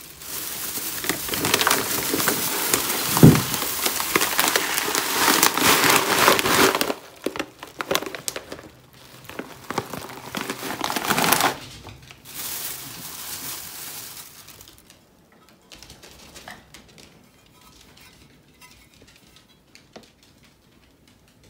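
Plastic shopping bag rustling and crinkling as it is rummaged through, loud and continuous for the first seven seconds, patchy until about eleven seconds, then dying down to light handling sounds.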